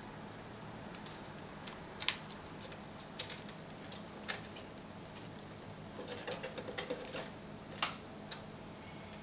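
Light clicks and taps of a printed circuit board and plastic parts being handled and seated in the opened cabinet of a Sony CFS-W600 boombox: separate clicks about once a second, with a busier run of small clicks around six to seven seconds in and a sharper one just after.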